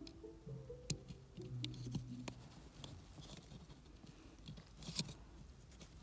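Faint clicks and rustles of fingers working wires and a plastic connector close to the microphone, with a sharper click about five seconds in. A few faint musical notes sound in the first two seconds.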